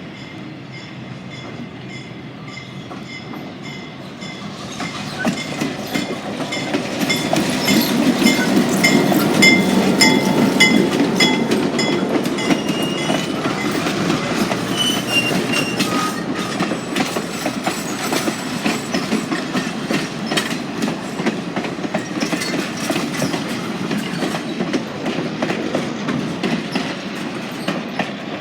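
Train led by Southern Pacific 5472 rolling past on the rails: a steady rumble with clickety-clack from the wheels and intermittent high wheel squeal. It grows louder about five seconds in and stays close.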